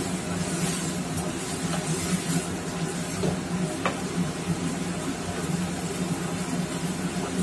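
Chopped napa cabbage sizzling in a non-stick frying pan as it is stirred with a wooden spatula, over a steady low hum, with a light tap about four seconds in.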